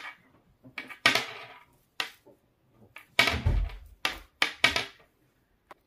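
Knitting needles working a knit row: several short bursts of needle clicking and yarn rubbing, with a low thump about three and a half seconds in.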